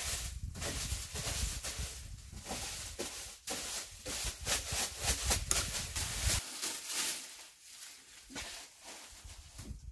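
Rustling and crackling of dry grass and leaves being handled, a dense run of short, irregular crackles. A low rumble underneath stops suddenly about six seconds in.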